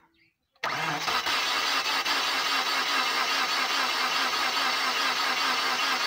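Starter motor cranking the Mazda Verisa's four-cylinder engine, which does not fire, with a spark plug out and a compression gauge fitted; the cranking starts about half a second in and goes on steadily. The cylinder under test shows only about 60 psi: very low compression.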